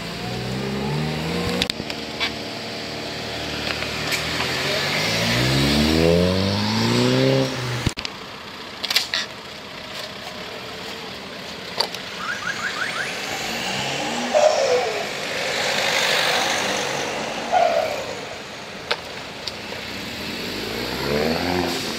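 Cars pulling away one after another, engines revving and accelerating with the pitch climbing. A loud pull breaks off suddenly about eight seconds in, and another car accelerates near the end.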